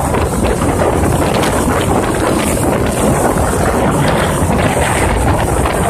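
Loud, steady wind rush buffeting the microphone of a camera riding on a moving motorcycle, with road and traffic noise underneath.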